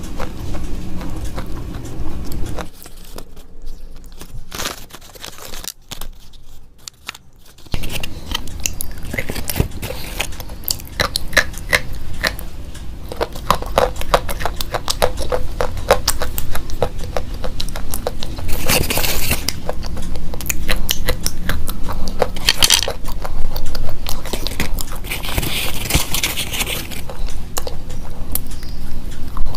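Slate pencils being bitten and chewed close to the microphone: rapid, crisp crunching and crackling. It goes quieter and sparser for a few seconds near the start, then runs dense and loud.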